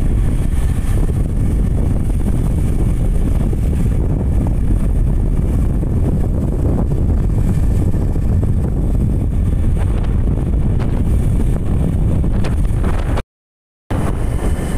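Wind rushing over the microphone of a moving motorcycle, a loud steady low roar. It cuts out for about half a second near the end.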